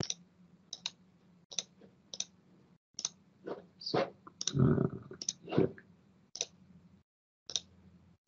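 Computer mouse buttons clicking: about a dozen sharp clicks at irregular intervals, some in quick pairs, as menu items are selected. There is a brief soft low rustle about halfway through.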